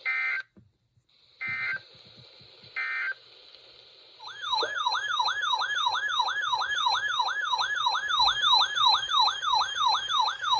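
Three short electronic data bursts of an Emergency Alert System broadcast, marking the end of the warning message. About four seconds in, a loud warbling siren-like alert tone starts, sweeping up and down about two and a half times a second.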